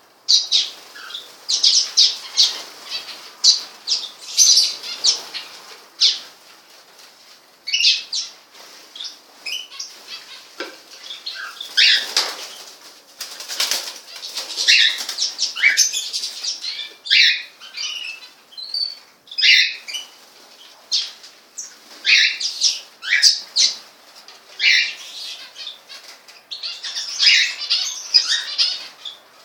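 Pet birds chirping in quick clusters of short, high calls, with wings fluttering.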